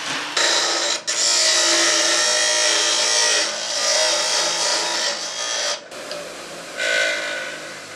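Bench grinder wheel grinding the edge of a small steel sheet-metal strip: a loud, steady grinding with a whine, with a short break about a second in. The grinding stops just before six seconds in, leaving a fainter motor whine near the end.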